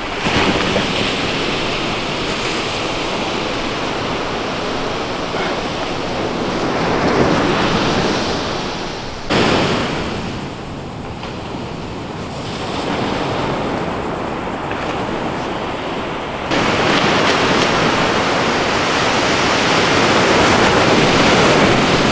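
Ocean surf washing onto the beach, a steady rushing noise that swells and ebbs, with wind buffeting the microphone. The sound jumps abruptly in level twice, about nine seconds in and again about sixteen seconds in.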